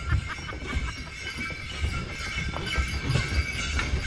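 Sleigh bells on a two-horse sleigh team jingling steadily as the horses pull, a continuous ringing with occasional sharper strikes, over a low rumble.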